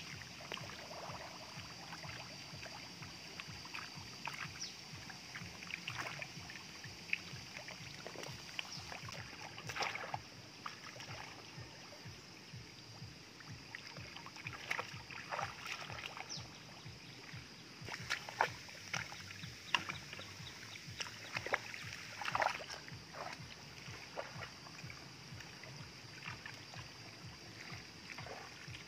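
Irregular splashing and sloshing of boots wading through shallow muddy water and a plastic basket being scooped through it, with a denser run of louder splashes about two-thirds of the way through. A faint steady high-pitched hum lies underneath.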